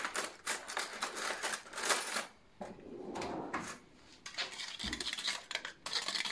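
A metal utensil clinking and scraping against a small bowl in quick irregular strokes as an egg yolk is beaten, with short pauses between runs and a dull bump about five seconds in.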